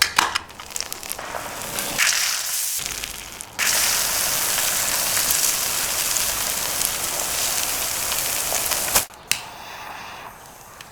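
Campfire crackling and popping, with scattered sharp pops at first, then a louder, dense crackling hiss from about three and a half seconds in that cuts off suddenly near the end.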